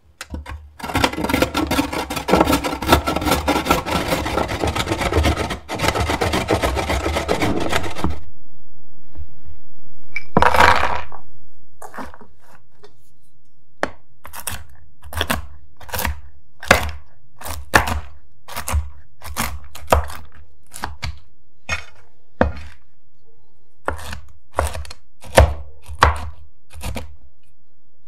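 A carrot is grated on a metal box grater: dense, rapid rasping strokes for about seven seconds. After a short scrape, a chef's knife chops roasted pecans on a wooden cutting board, as separate sharp knocks, one or two a second.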